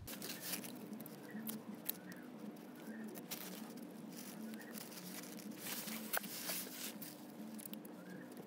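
Utility knife blade cutting and scraping into an old rubber steering rack bushing, a faint run of irregular small scratches and clicks.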